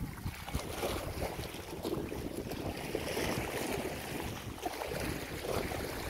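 Wind buffeting the microphone over choppy water, with small waves lapping and splashing close by.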